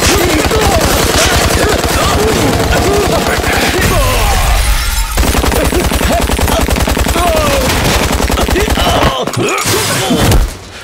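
Automatic gunfire: a fast, continuous rattle of shots that eases off briefly near the end.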